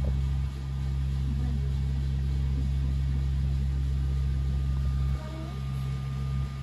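Tram running with a steady low hum that dips in level about half a second in and again about five seconds in.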